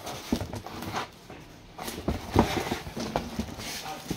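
Cardboard box being handled: its flaps scrape and rustle, with irregular knocks and thumps. The loudest knock comes a little past the middle.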